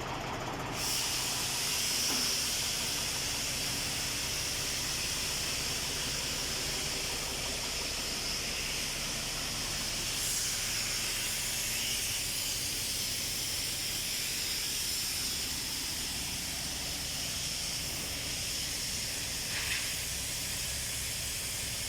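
Mercedes-Benz 2624 truck's diesel engine running low, with a steady loud hiss starting about a second in and continuing over it.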